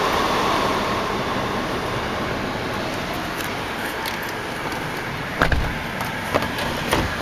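Air-conditioning blower fan in a 2003 Chevrolet Avalanche's cab, blowing steadily after being switched on. A few short knocks near the end.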